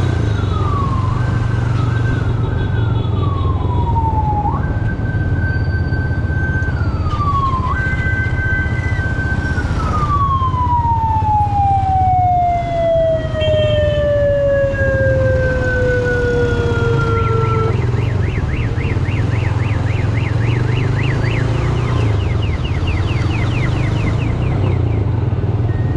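A siren repeatedly jumps up to a high held tone and slides down again. It then falls slowly over about eight seconds and dies away. A fast warbling tone follows near the end, over the steady low rumble of the motorcycle and traffic.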